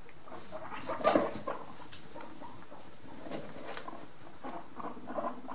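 Guinea pigs making short, quiet squeaks over and over, with a brief louder rustle about a second in.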